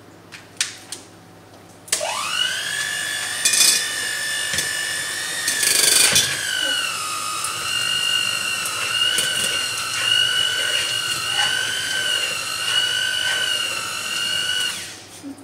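Electric mixer beating butter: it spins up about two seconds in and runs with a steady whine that drops slightly in pitch partway through, with a couple of knocks, then stops just before the end.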